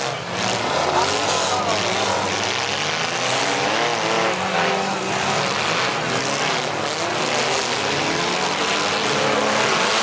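Several demolition derby car engines revving at once, their pitches rising and falling as the cars accelerate and ram one another in the arena.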